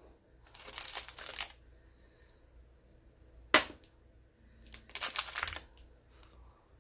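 Small crystal moon-phase discs being handled and set down on a tabletop board: two short stretches of sliding and rustling, and one sharp click about three and a half seconds in.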